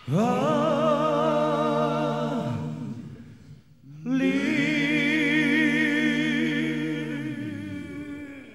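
A male singer holding two long sung notes with a wide vibrato, each lasting about three to four seconds with a short breath gap between them, with no backing audible. The second note swells and then fades away near the end.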